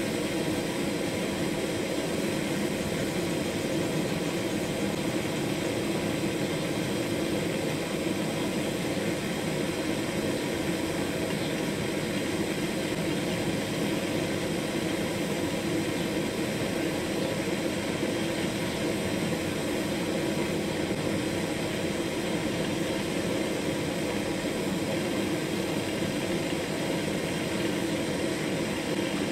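Butane gas torch on a screw-on canister, burning steadily: an even, unchanging rush of gas and flame that holds at one level throughout.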